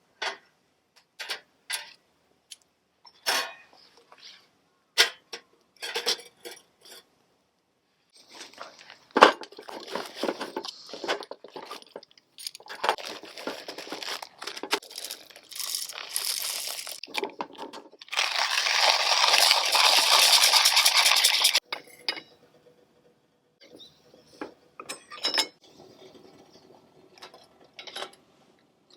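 Clinks, knocks and clatter of camp gear and cookware being handled, with a few seconds of loud steady hiss that cuts off suddenly.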